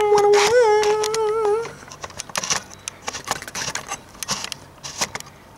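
A person's voice holding one high note with a slight waver, which breaks off about a second and a half in. After it come scattered small clicks, taps and rustles of the camera being handled.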